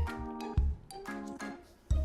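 Background music: an upbeat instrumental track with plucked, bell-like notes over a bass-drum beat.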